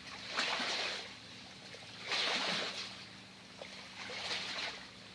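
Water washing in soft swells about every two seconds, over a faint steady low hum.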